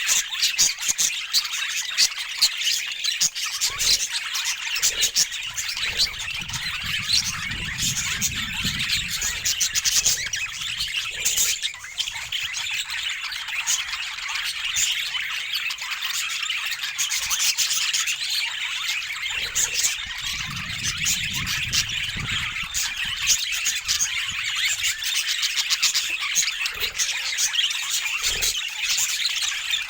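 Budgerigars chattering and chirping continuously, a dense run of warbles, squawks and short clicks.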